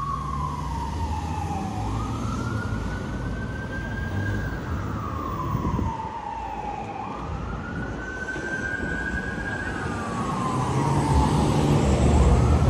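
Emergency vehicle siren in a slow wail, its pitch falling and rising again about every four to five seconds, over the rumble of street traffic.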